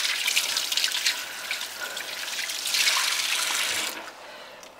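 Kitchen tap running with hands being washed under the stream, stopping about four seconds in.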